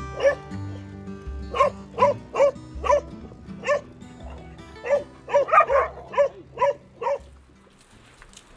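A dog barking repeatedly, about a dozen sharp barks, several close together just past the middle, over background music; the barking stops about seven seconds in.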